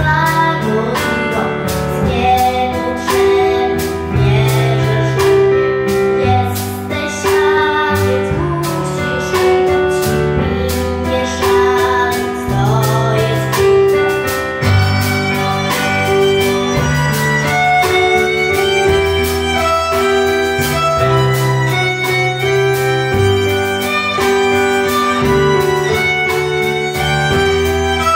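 Live pop song performed by a young girl, who sings and then, partway through, plays the melody on violin, accompanied by drum kit and keyboard with a steady beat.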